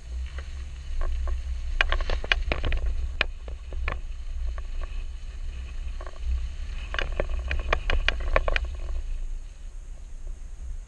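Kumho Road Venture AT51 all-terrain tyres rolling over gravel and dirt, with a steady low rumble of wind and road on an outside-mounted camera. Two spells of sharp clicks as stones crackle and ping under the tyres, one about two seconds in and another about seven seconds in.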